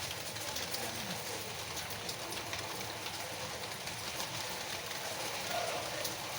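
Steady rain falling, an even hiss with fine drop ticks throughout.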